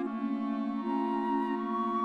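Instrumental background music: long held notes over sustained chords that shift every second or so.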